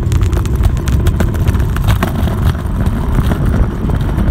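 Kick scooter's small hard wheels rolling fast down an asphalt hill: a steady loud rumble with many small clicks from cracks and grit in the road.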